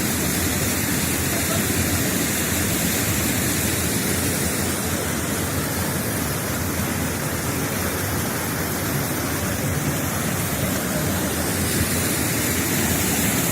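Waterfall: a loud, steady rush of falling water that holds level without breaks.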